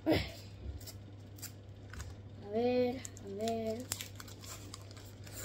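Paper wrapper of a Panini sticker packet being torn open by hand, with scattered crinkling and tearing crackles.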